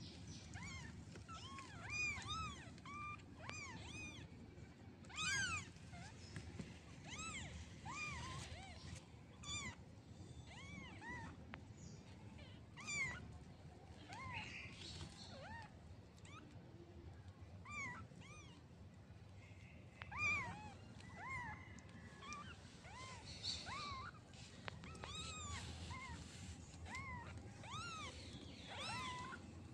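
Newborn kittens mewing: many short, high-pitched mews, each rising and falling in pitch, repeating throughout and at times overlapping from several kittens at once.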